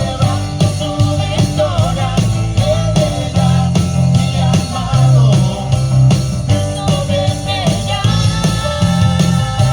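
A band playing live with a drum kit, bass and guitar to a steady beat, with a voice singing a wavering melody over it, as in a sound check.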